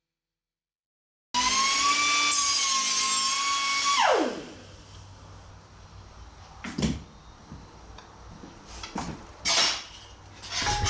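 After about a second of silence, a high-pitched power tool runs at speed for about two and a half seconds, then its whine falls in pitch as it winds down. A few scattered short knocks follow.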